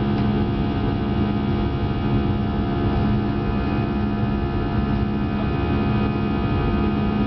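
Airbus A319 jet engines at climb power shortly after takeoff, heard inside the cabin: a steady drone of rushing air with several held tones over it.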